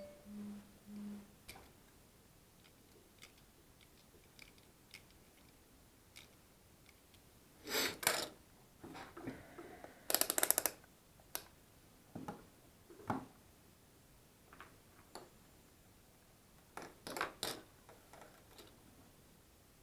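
Scattered clicks and a few louder snips and crunches of hand tools working on a power cord and plug. One of them, about ten seconds in, is a quick rattle of ticks.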